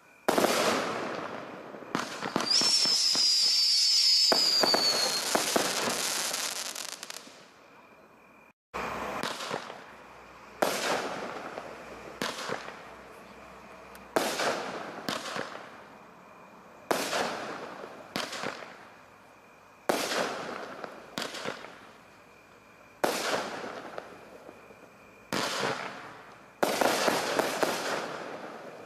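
Fireworks going off in a series of bangs, roughly one every two to three seconds, each followed by crackling as it fades. A few seconds in, a falling whistle sounds over the crackle.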